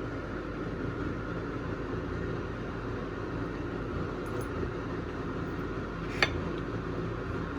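Steady background hum, with a single sharp clink of a utensil against a dish about six seconds in.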